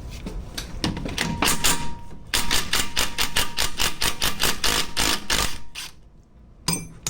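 Socket ratchet clicking rapidly in quick runs while bolts are backed out of the water pump cover on a Polaris RZR 800 engine, with a short knock near the end.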